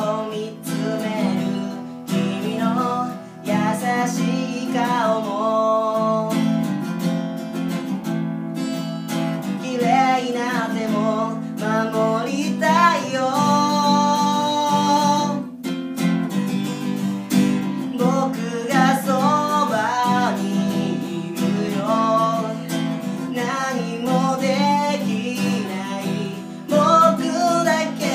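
An acoustic guitar strummed steadily, with a solo voice singing a melody over it.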